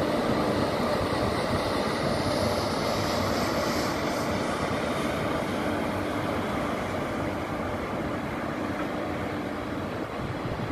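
A freight train hauled by three coupled WAG-5 electric locomotives running past, with a dense rumble of steel wheels on the rails under a steady hum. It grows slightly quieter as the locomotives move off and the wagons roll by.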